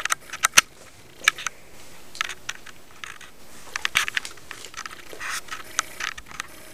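Spring-powered airsoft M4 being cocked and fired: scattered sharp clicks and short rattling clusters, with a few louder snaps.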